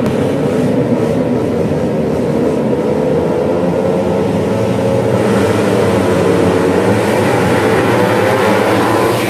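A pack of tuned four-stroke underbone racing motorcycles, up to 150 cc, revving together, many engine notes overlapping. The pack grows louder and brighter about halfway through, with the notes rising as the bikes pull away.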